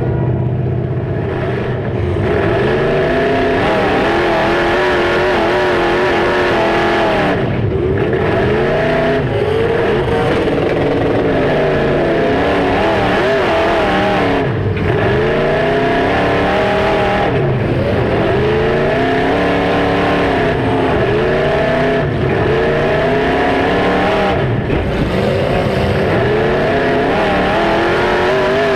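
Demolition derby car's Chevy LS 6.0 V8 engine revving hard, its pitch rising and falling over and over every couple of seconds as the car pulls forward and backs up.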